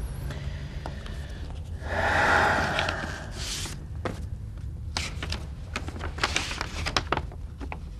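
A folded paper letter being opened and unfolded by hand, with a run of short, crisp paper crackles and rustles in the second half. About two seconds in there is a louder, brief rushing noise, and a low steady hum runs underneath.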